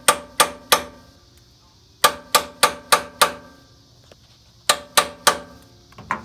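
Hammer tapping a reverse-threaded screw extractor (easy out) into a hole drilled in a broken bolt, to make it bite. The metal-on-metal taps come in three quick runs, about three a second, and each rings briefly.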